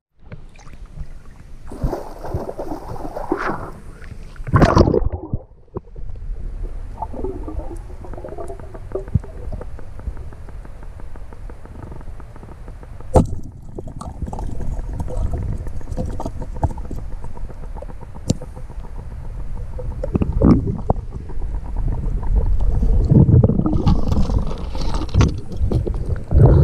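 Water splashing at the surface for the first few seconds, then the muffled low rumbling and gurgling of water heard from a camera held underwater, scattered with small clicks. Louder sloshing returns near the end.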